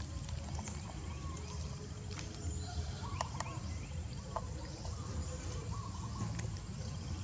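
Rural outdoor ambience: a steady low rumble, with scattered short chirping calls and clicks throughout and a faint steady high-pitched whine.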